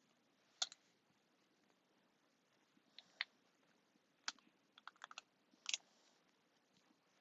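Scattered sharp plastic clicks: a single click, a pair a few seconds in, then a quick run of clicks near the end, from the snap-together links of a wacky track fidget being twisted straight.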